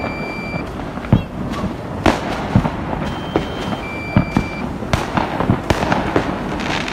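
Many fireworks going off across a city: irregular sharp bangs and crackles over a constant din of more distant bursts. A high electronic beep sounds briefly every few seconds, alternating between two pitches.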